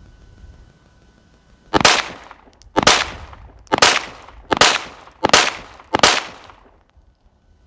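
Six pistol shots from a SIG P365 XMacro 9mm fired in a bill drill, the first about two seconds in and the rest following at a bit under a second apart, each a sharp crack with a short echoing tail.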